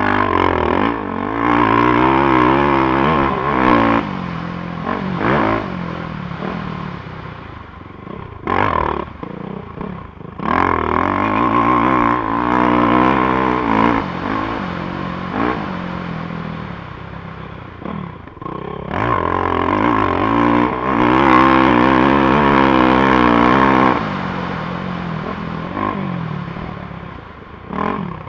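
450cc four-stroke dirt bike engine ridden hard, the revs climbing and falling as the throttle is opened and shut, with short drops in sound near 4, 8.5, 10, 19 and 27 seconds.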